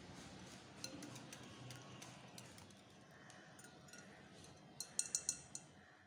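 A wire whisk stirring a thin milk-and-egg mixture in a glass bowl, its wires ticking faintly against the glass. Near the end the whisk is lifted and gives about five quick, sharp clicks against the bowl.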